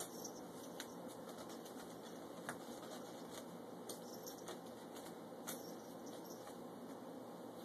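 Faint, soft taps scattered over a steady low hiss, about one every second or so, from a balloon being batted around a puppy on a couch.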